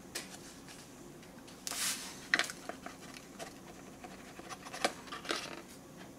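Drink-mix packet rustling and crinkling as spiced cider powder is shaken out of it into a glass of water, with a few short sharp clicks.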